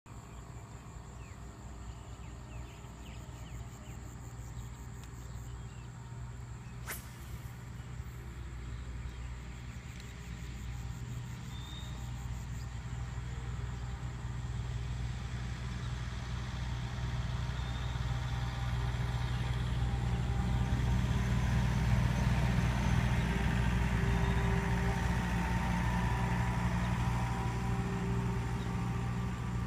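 A motor's steady low hum, growing gradually louder over the first two-thirds and then holding.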